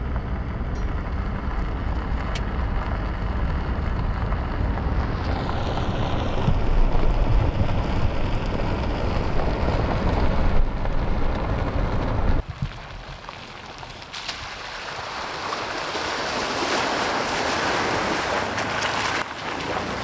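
Vehicle road and wind noise: a steady low rumble with a rushing hiss for about twelve seconds, which cuts off abruptly. A broad windy hiss then builds up toward the end.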